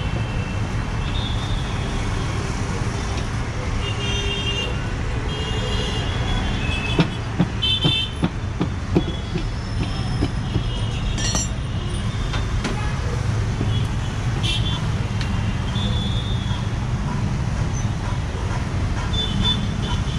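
Steady street traffic rumble with vehicle horns tooting on and off, and a few sharp knocks and clicks about seven to nine seconds in.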